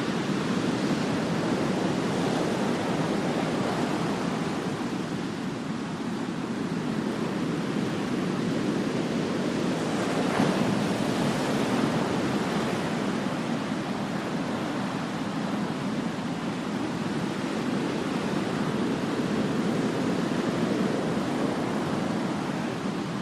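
Ocean surf: waves breaking and washing in as a steady rushing noise that swells and eases every few seconds, with one louder wave about halfway through.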